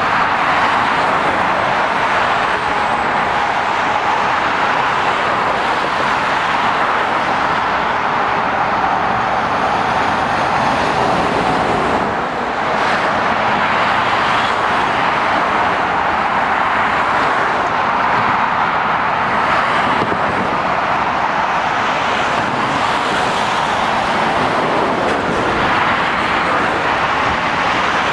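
Steady traffic noise from a busy dual carriageway: the tyre roar and engines of cars, vans and lorries passing close by, with a brief dip about twelve seconds in.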